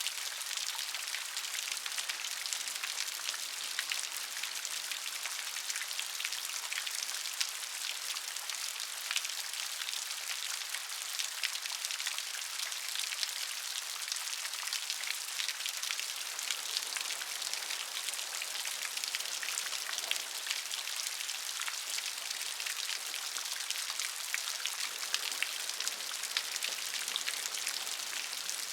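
Steady rain falling, with dense, closely spaced drop patter that sits mostly in the high range and holds an even level throughout.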